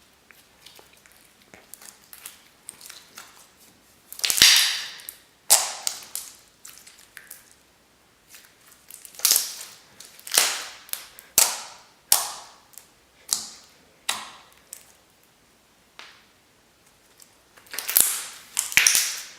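Slime being squeezed and pressed by hand, giving a dozen or so sharp, loud pops and clicks as trapped air bursts out, spaced irregularly with quiet gaps between.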